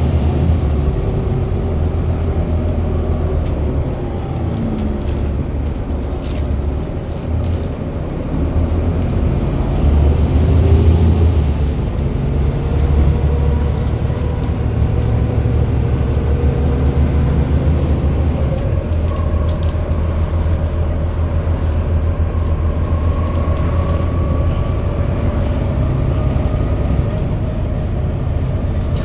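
Bus VLA129's engine running under way with a steady low drone. Higher whines rise and fall over it in the second half.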